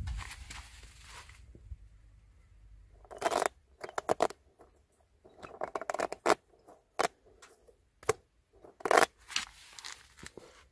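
Close handling sounds of rubbery puffer ball toys being held and set down on gritty pavement: scratching and scraping with clusters of sharp clicks, in several separate bouts.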